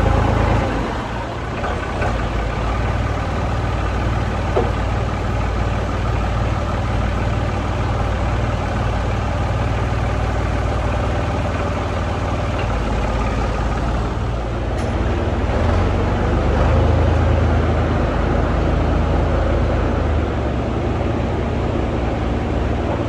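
A vehicle engine running steadily with a low drone, swelling a little for a few seconds about two-thirds of the way through.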